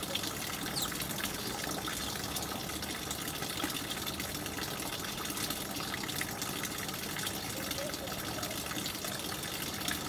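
Steady rushing noise of running water, with a few faint high chirps.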